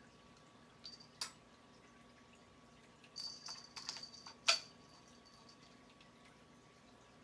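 Hanging beaded ornament jingling and clicking as a cat bats it with its paw: a couple of light clicks about a second in, then a flurry of jingles and clicks between about three and four and a half seconds, ending in one sharper knock.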